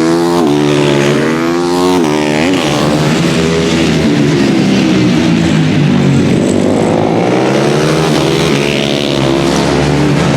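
Several supermoto race bikes going by at race pace, their engine notes overlapping and rising and falling in pitch as they accelerate, shift and brake. A quick run of revs dipping up and down comes about two seconds in.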